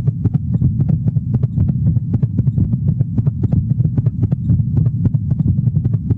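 Heartbeat sound effect: repeated low beats over a steady low hum.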